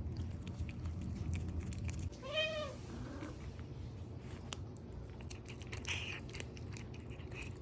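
A cat gives one short meow, rising then falling in pitch, about two seconds in. A low steady hum runs under the first two seconds, with scattered faint clicks.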